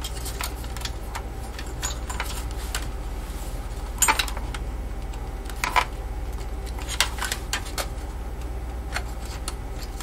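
Small plastic and metal clicks and rattles of hands working a SATA drive cable's connector into place inside a small-form-factor computer case. The sharpest clicks come about four seconds in, and again near six and seven seconds.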